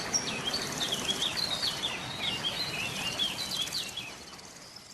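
Background ambience of birds chirping in quick, high, repeated phrases over a soft outdoor hiss, fading out near the end.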